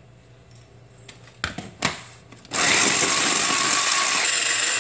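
A few clicks as the motor head of an electric mini chopper is set onto its bowl, then about halfway in the motor starts and runs with a loud, steady whir, chopping chillies, garlic, onion, galangal and ginger into a spice paste. Its pitch dips slightly near the end.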